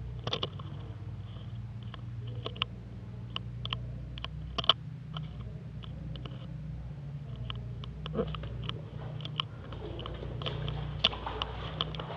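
Irregular crunching and clicking as someone moves through a corroded corrugated metal pipe, over a steady low hum.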